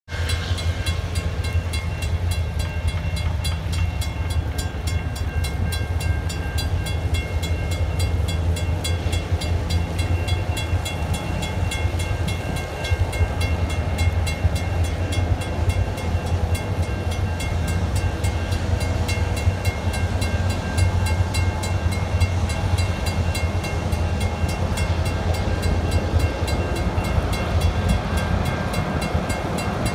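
Railroad crossing bell ringing in a steady, rapid run of strikes while the crossing's gates are down, over a loud low rumble.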